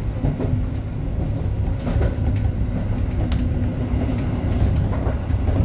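Tobu 8000-series electric commuter train running along the track: a steady low rumble with scattered clicks of the wheels over rail joints. A steady hum sounds through the first four seconds or so.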